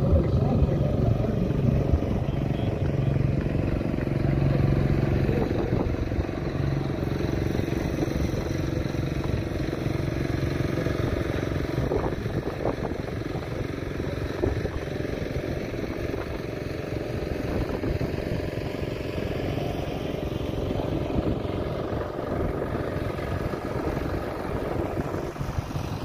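An engine running with a steady low hum that slowly fades.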